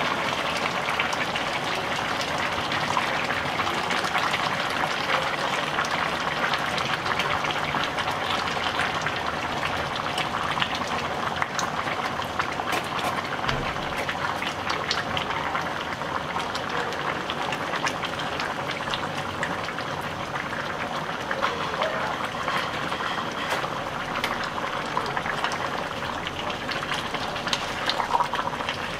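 Pot of jackfruit curry in coconut milk boiling, a steady bubbling, while coconut milk is squeezed in from a packet and stirred through with a wooden spatula.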